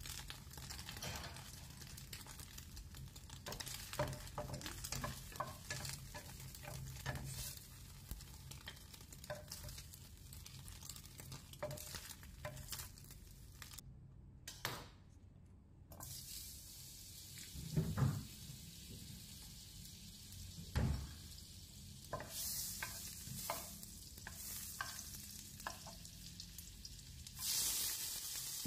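Wooden spatula stirring and tapping in a ceramic non-stick frying pan over a light sizzle of frying food, with two dull thumps midway. Near the end a loud, steady sizzle starts as prawns fry in the pan.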